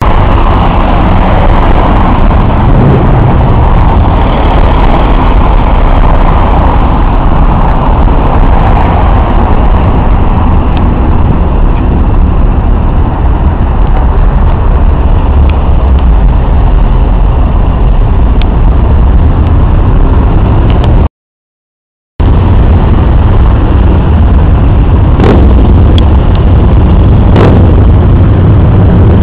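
Road traffic, cars and buses running past as a loud, steady rumble. The sound drops out for about a second a little after two-thirds of the way through, and there are a few sharp clicks near the end.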